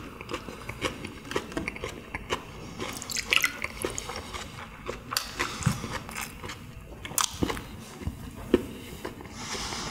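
Close-up chewing and wet mouth clicks from eating pressed meat. About three seconds in, soju is poured from a glass bottle into a shot glass with a short gurgling trickle.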